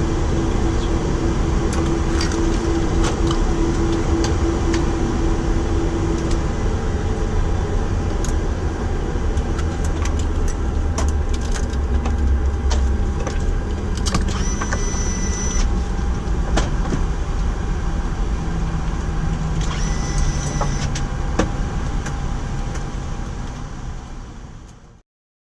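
Airbus A330 flight-deck noise: a steady low rumble with scattered clicks and rattles, and two short high-pitched tones about 14 and 20 seconds in. It fades out near the end.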